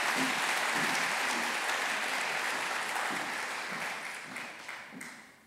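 Audience applauding, steady at first and dying away over the last second or so.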